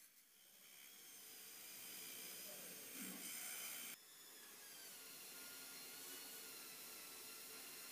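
Faint whine and hiss of a small rotary tool spinning a sanding drum against the steel tang of a straight razor. About four seconds in the sound cuts off abruptly to a steady faint hiss with a thin whine.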